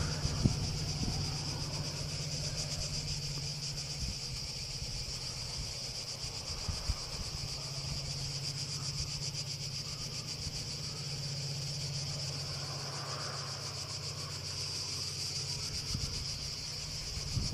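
A steady, high insect chorus, with a low, steady drone underneath from a distant HŽ class 2044 diesel locomotive working its train along the hillside.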